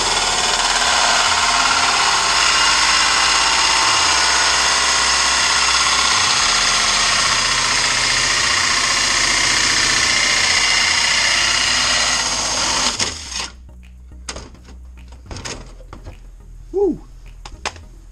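Cordless drill running at full speed under load for about thirteen seconds, then stopping suddenly. A few light clicks and knocks follow.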